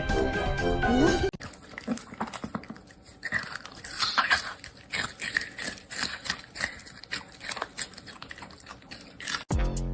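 A dog making many short, irregular sounds, with a few brief higher-pitched calls in the middle. Music plays before them and cuts off about a second in, then returns abruptly near the end.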